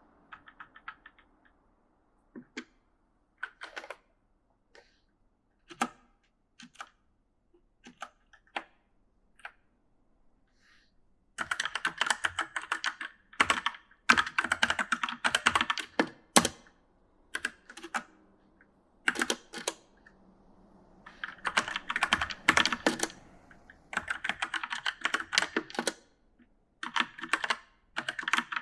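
Typing on an E-Element mechanical gaming keyboard: scattered single keystrokes for about the first ten seconds, then fast runs of typing in bursts of a couple of seconds with short pauses between.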